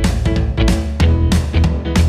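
Background music: an upbeat guitar track with bass and a steady beat.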